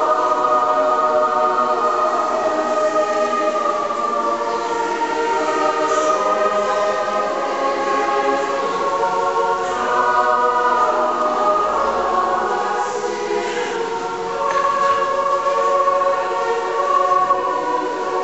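Choir singing slow chords, the voices holding long notes.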